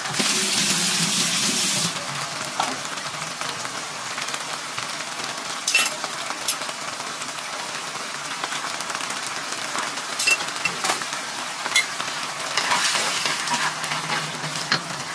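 Sardines in tomato sauce sizzling in a frying pan, a steady hiss with scattered crackles, louder for about the first two seconds. Near the end a wooden spatula stirs the pan.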